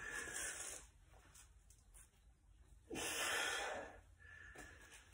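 A man's forceful, noisy breaths, three of them with the second one loudest, as he strains to bend a steel nail barehanded.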